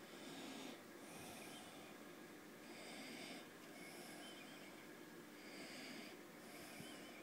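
Faint breathing close to the microphone, an in-and-out pair of soft breaths about every three seconds, over a faint steady hum.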